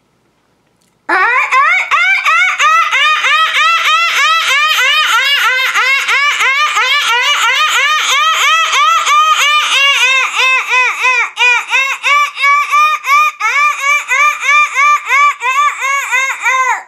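A woman's voice making high-pitched, rapid pulsing calls, several a second, each rising and falling in pitch: vocalised 'dolphin light language' in imitation of dolphins. It starts suddenly about a second in and goes on without a break.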